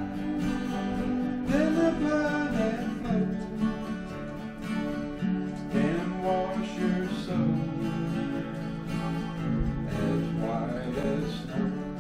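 Two acoustic guitars playing a country-style tune together, strummed chords under a melody line.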